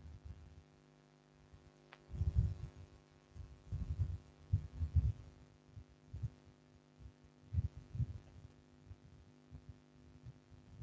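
Faint steady electrical hum, with irregular low thumps and rumbles coming in short clusters about two, four to five, and eight seconds in.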